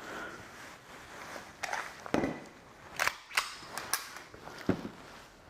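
Handling noise from a handgun being moved about and pushed into a jacket pocket: about six short, sharp clicks and knocks spread over a few seconds, with light rustling.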